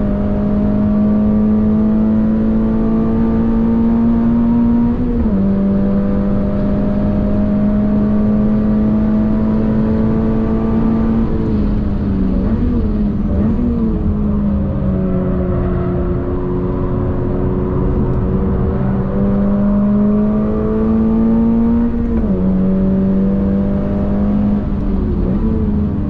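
2022 Toyota GR86's 2.4-litre flat-four engine heard from inside the cabin, accelerating hard with its pitch climbing steadily and dropping sharply at an upshift about five seconds in and again near the end. Around the middle the note falls and wavers as the car brakes and downshifts for a corner, then climbs again as it accelerates out.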